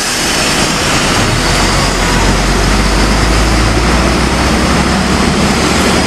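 Mercedes-Benz OH 1836 coach's diesel engine pulling away down the road, a steady low rumble, mixed with motorbikes passing close by.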